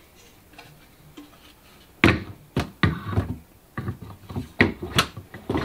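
Hard knocks and clacks of a polystone statue's cape piece being handled and fitted onto its base. A quick run of about eight of them starts about two seconds in.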